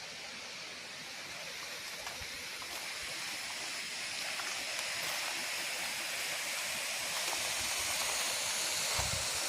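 Waterfall's steady rush of falling water, growing slowly louder.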